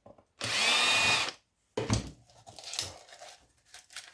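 Cordless drill-driver whirring for about a second, unscrewing a screw to take a circuit board out of old electrical equipment, followed by light knocks and rattles of the parts being handled.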